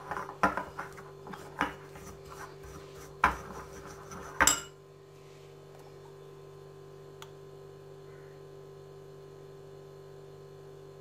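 A steel spoon stirring and scraping a thick paste of crushed leaves, coffee and honey in a glass bowl, clinking against the glass, with the sharpest knocks about three and four and a half seconds in. The stirring then stops, leaving a steady low electrical hum.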